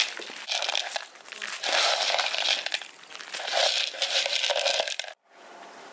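Dry corn kernels rattling in a plastic bowl and spilling onto the ground as chickens are fed, in several rushing swells. The sound cuts off abruptly about five seconds in.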